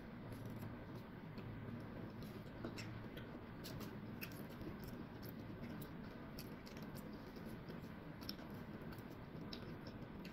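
Faint, scattered little clicks and scratches of a small knife cutting into a peeled orange held in the hand, over a low steady room hum.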